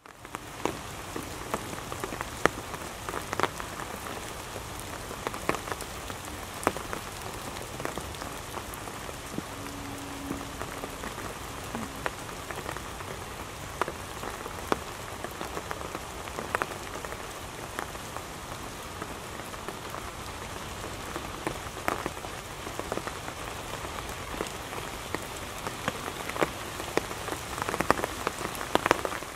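Steady rain falling, a constant patter broken by frequent sharper, louder single drops.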